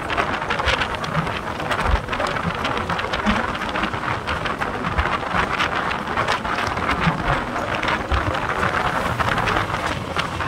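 Deccan Queen Express passenger train running at high speed: a steady rush of wind with the rumble and irregular knocks of the wheels on the rails, heard from the open side of a moving coach.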